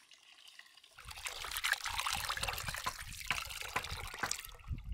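Water trickling and splashing, starting about a second in and running on with many small spatters.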